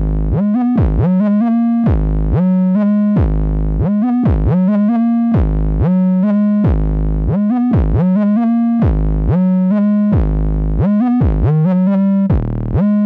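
Synthesizer music: a repeating figure of low notes that each slide up into pitch, about one a second, with higher notes layered over them.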